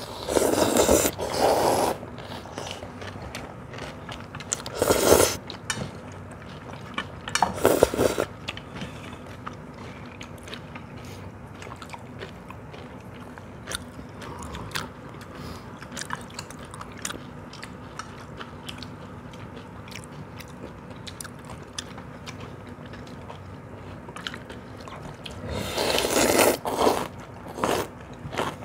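People slurping cold soybean-milk noodles from steel bowls. Loud slurps come at the start, around five and eight seconds in, and again near the end, with quieter chewing in between.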